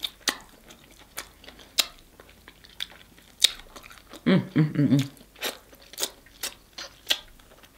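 Close-miked mouth sounds of a person eating barbecue-sauced grilled pork chop: irregular wet smacks and clicks of biting and chewing. About four seconds in there is a short hummed sound from her voice, lasting just under a second.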